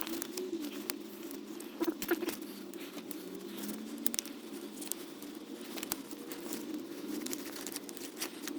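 Scattered small clicks, taps and scrapes of hand tools and metal parts being worked in a car's engine bay, over a low steady hum.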